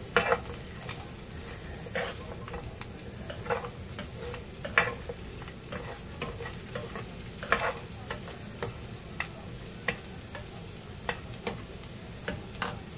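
Chicken wings sizzling softly as they dry-fry in butter and grated ginger in a nonstick frying pan. A spatula scrapes and taps against the pan about once a second as the wings are turned.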